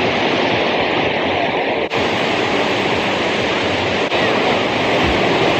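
Ocean waves washing steadily onto the beach, with wind noise on the microphone.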